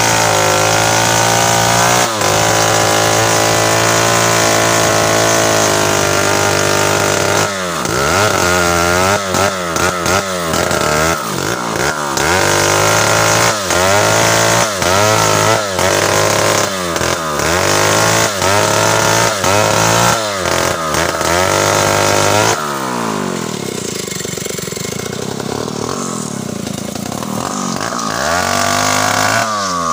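Large Stihl two-stroke chainsaw cutting through a thick felled tree trunk. It runs steady under load at first, then its pitch dips and recovers about once a second as the chain bites into the wood. About two-thirds of the way in it drops back to a lower idle as the cut goes through.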